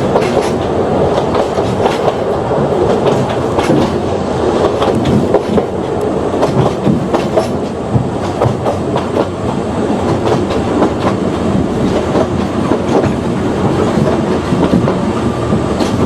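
Ōigawa Railway Ikawa Line train running along the track, with a steady rumble and wheels clicking over the rail joints. A faint high steady whine sets in near the end.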